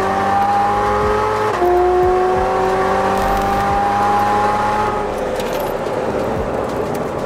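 Corvette ZR1's supercharged V8 heard from inside the cabin, the revs climbing, dropping briefly at a gear change about one and a half seconds in, then climbing again until the engine eases off about five seconds in.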